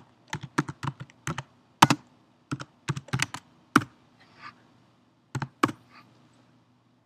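Typing on a computer keyboard: a quick run of separate keystrokes for about four seconds, then a pause and two more key presses about two-thirds of the way through.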